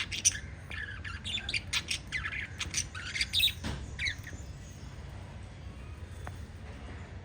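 Several small pet parrots chirping and squawking in quick, overlapping short calls, which thin out to a few faint calls after about four seconds. A steady low hum runs underneath.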